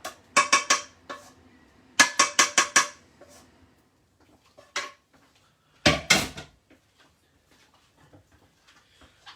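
Metal kitchen utensils clinking and scraping against a pan and plate in several short groups of sharp strikes, the loudest pair a little after the middle.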